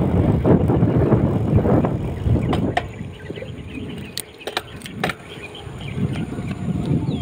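Rumbling wind and road noise from a moving vehicle, heavy at first and easing off after about two seconds, with a few sharp clicks in the middle.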